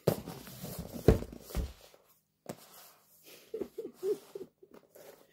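Close-up handling of a cardboard microphone box: rubbing and sliding with a sharp knock about a second in, then a few lighter taps and scrapes as the box is lifted.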